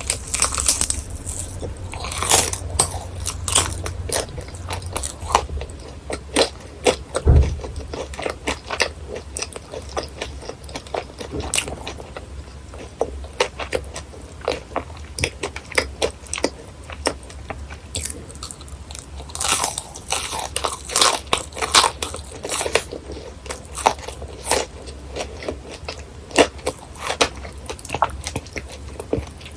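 Close-miked crunching of crispy fried churros: bites and chewing, with dense crackly crunches that come in clusters, busiest near the start and again around two-thirds of the way through.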